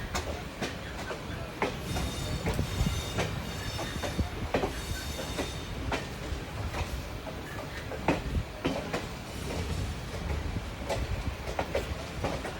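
Passenger train running with a steady rumble and wheels clicking irregularly over rail joints and points, heard from on board a coach. A faint high-pitched wheel squeal comes and goes in the first half.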